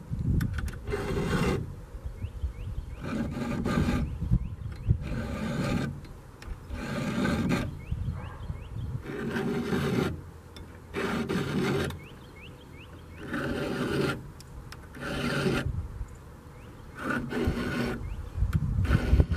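Round chainsaw file rasping across the steel cutters of a ripping chain, sharpening the teeth in separate strokes about a second or two apart, with a longer pause a little past halfway.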